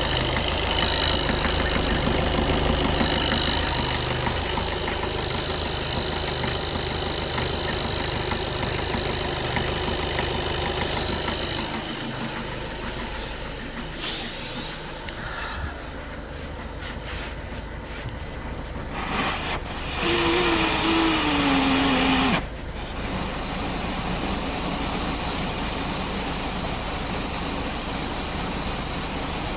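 Skoda Octavia A7's 1.6 TDI four-cylinder diesel idling cold with the knock it makes until warm. About twelve seconds in, the steady engine note drops away. Later comes a louder sound, falling in pitch for about two seconds, which cuts off suddenly.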